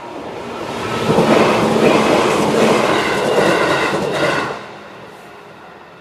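JR 211 series electric train passing over a level crossing: it builds up over the first second, runs loud for about three and a half seconds, then drops away sharply about four and a half seconds in. The crossing's electronic warning bell (JR standard sound) dings about twice a second underneath.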